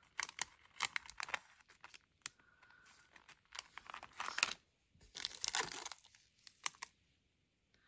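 Plastic snack wrappers crinkling and rustling in irregular spells as packets are handled and picked out of a box, stopping about seven seconds in.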